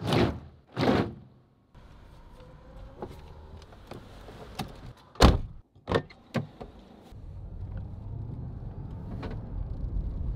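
Two loud rushing sweeps at the start, then a few sharp clicks and knocks from an old Mercedes saloon's door being handled, the loudest a knock about five seconds in. From about seven seconds in, the car's engine runs with a steady low rumble.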